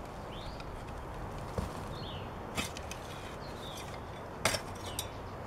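Garden digging fork driven into and turning over clumpy soil, a few separate crunching strikes of the tines and clods. Small birds chirp now and then in the background.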